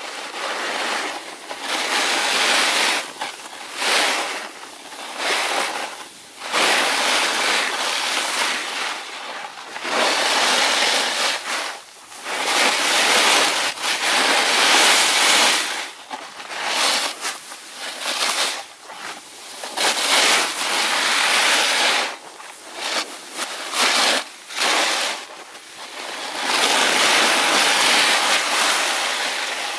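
Snowboard edge scraping and hissing over snow as the rider carves turns, the noise swelling and fading with each turn every second or two.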